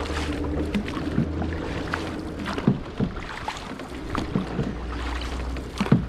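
Paddles dipping and splashing as a crew paddles a boat, with uneven splashes and knocks about once a second over a low rumble of wind on the microphone.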